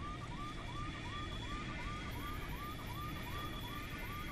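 Cockpit warning alarm: a short rising electronic chirp repeating about twice a second, over a steady low rumble of aircraft noise.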